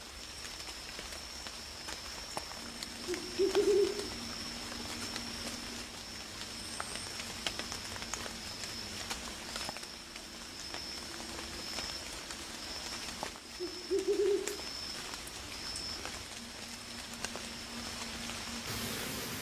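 Night forest ambience: a steady high insect drone with scattered faint ticks, broken twice, about ten seconds apart, by a short low owl hoot.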